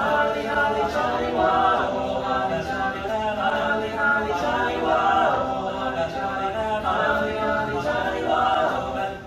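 A small group of teenage boys from a high school show choir singing a cappella in harmony, with no accompaniment.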